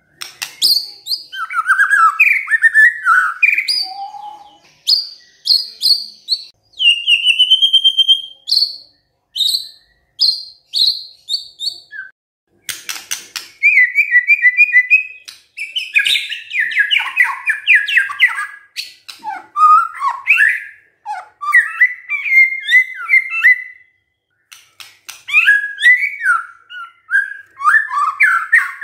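White-rumped shama singing a long, varied song. Its phrases of clear sliding whistles, trills and fast repeated notes come one after another, with short pauses between them.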